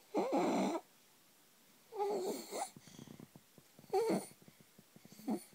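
A 4-month-old infant's noisy, rasping breathing: stridor from laryngomalacia. There are four loud breaths about two seconds apart, each with a wavering squeaky tone running through the rasp, and the last one is shorter.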